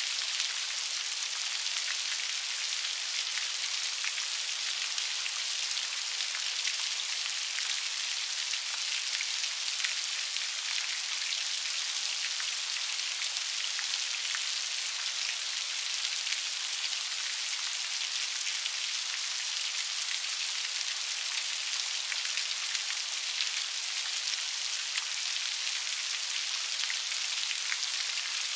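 Steady rain falling, a dense patter of raindrops over an even hiss.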